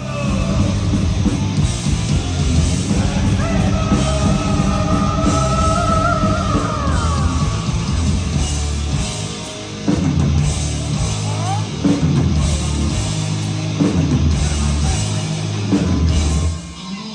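Heavy metal band playing live, with distorted guitars and drums and a long held note about four seconds in. The music drops off sharply near the end.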